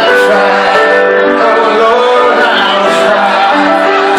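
A man singing into a microphone over live piano, holding long notes.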